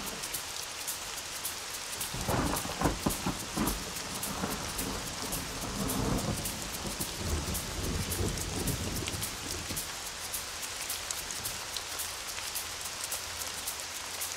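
Steady heavy rain with rolling thunder: a loud crackling peal about two seconds in, then a lower rumble around the middle.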